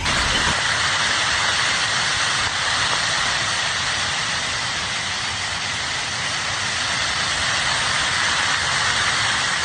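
Steady rushing noise of a muddy flash flood (huayco) surging down a river channel, an even hiss without breaks.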